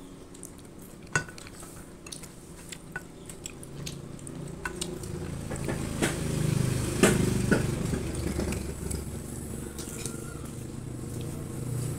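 Metal forks clicking and scraping against a glass baking dish as pieces of banana fritter are picked up, in scattered sharp clinks, the loudest about seven seconds in. A low hum grows louder from about four seconds in.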